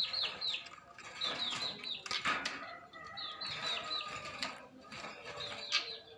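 Keciblek (bar-winged prinia) calling: short runs of three to five quick, high, hooked notes, repeated about every second or two.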